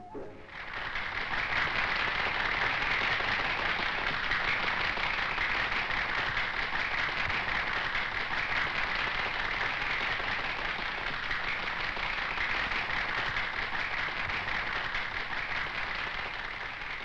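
Crowd applauding steadily, a dense crackle of many hands. It starts abruptly about half a second in and thins slightly near the end.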